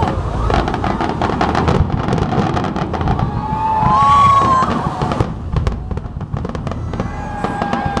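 Fireworks display going off: dense crackling and popping bursts over a low rumble, with a whistle-like tone rising in pitch about midway. The crackles thin out toward the end.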